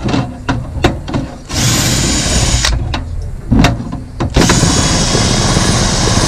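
Bosch drill spinning a wire cup brush against the rusty steel gear-shift pedal, scrubbing off rust in two runs: a short one about a second and a half in, then a longer one from about four and a half seconds in. Sharp clicks and knocks of the parts being handled come before and between the runs.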